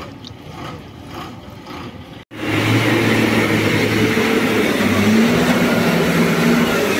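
A motor vehicle engine running loud and steady. It starts abruptly about two seconds in, after a quieter stretch.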